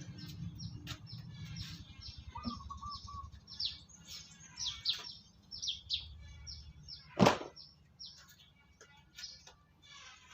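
Birds chirping: a quick run of short, high, downward-sliding notes, with a brief lower warble a couple of seconds in. About seven seconds in there is a single sharp knock, louder than the birdsong.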